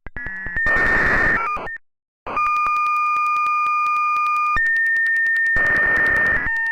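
Computer-generated sonification of the Mandelbrot set: steady electronic beep tones that jump abruptly between pitches, alternating with bursts of harsh noise, with clicks at each change. In the middle a two-note tone is held for about two seconds.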